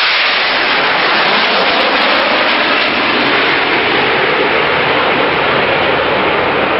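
Jet noise from Blue Angels F/A-18 Hornets flying over: a loud, steady rushing sound with no breaks.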